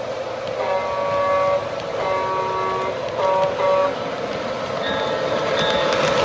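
Lionel model train's electronic horn sounding a chord: two long blasts, then two short ones, with more horn sounding near the end, over the steady running noise of the train.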